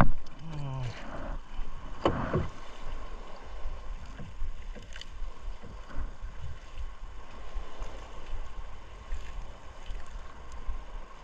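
A wet fishing net being hauled by hand over a small boat's wooden gunwale, with water splashing and dripping off the mesh. A sharp knock comes at the start and another noisy burst about two seconds in, then light, irregular splashes and rustling.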